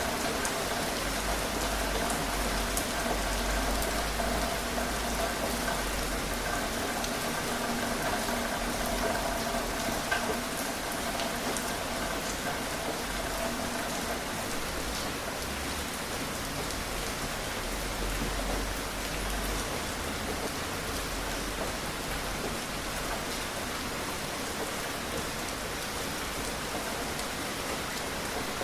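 Steady rain falling, an even hiss with scattered drops ticking. A faint steady hum sits under it through the first half and fades out about halfway through.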